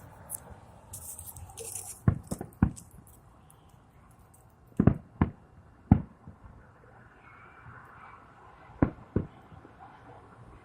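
Fireworks going off: sharp bangs in clusters of two or three every few seconds, about eight in all, with a brief high crackling fizz in the first couple of seconds.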